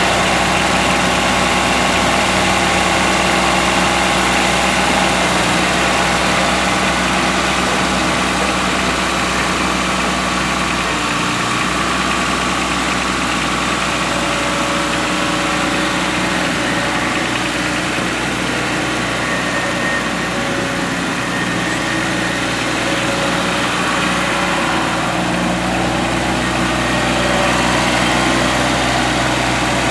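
2004 John Deere 2210 compact tractor's Yanmar 1.0 L three-cylinder diesel engine running steadily.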